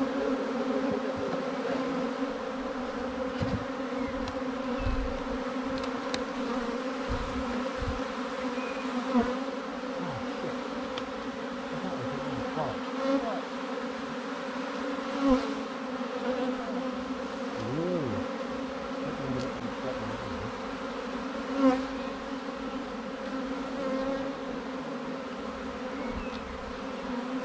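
A swarm of honeybees buzzing in a steady hum. Now and then single bees fly close past, a brief louder buzz that bends in pitch.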